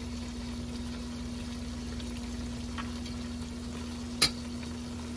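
Cream sauce with chicken and fenugreek leaves simmering in a stainless steel pan as a metal spoon stirs it, over a steady low hum. The spoon clinks sharply against the pan once about four seconds in.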